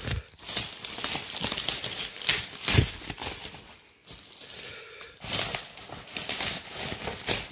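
Plastic packaging, bubble wrap and clear film, crinkling and rustling as it is pulled off a metal belt plate, with a brief lull midway. There is a soft thump about three seconds in.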